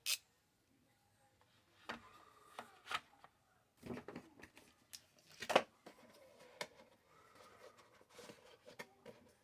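Scattered clicks and knocks of small hard objects being handled, with the sharpest click about five and a half seconds in.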